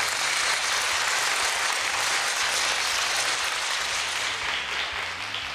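Studio audience applauding, a dense steady clapping that eases off near the end.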